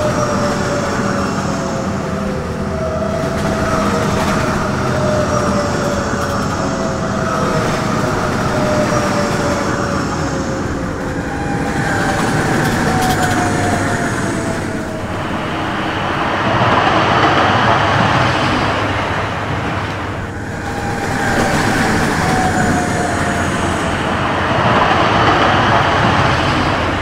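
High-speed trains rushing through a station one after another, a sound-effect track: a steady rushing noise that swells as each train passes, with a long falling whine as each one goes by.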